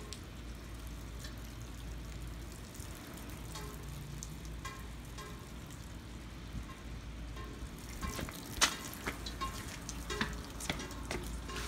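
Steady monsoon rain falling, an even hiss of drops. About eight seconds in, a run of sharp knocks and clicks breaks in over it.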